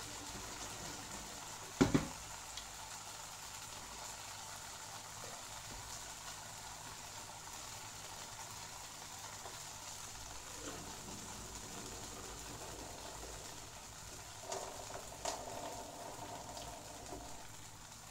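Cutlets and grated horseradish sizzling steadily in oil in a frying pan over high heat. There is a single loud knock about two seconds in and a few softer knocks near the end.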